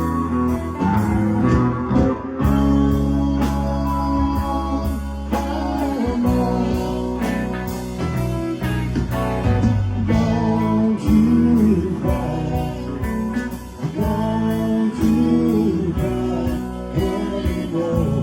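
Live rock band playing an instrumental jam, guitar leading over bass and a steady drum beat.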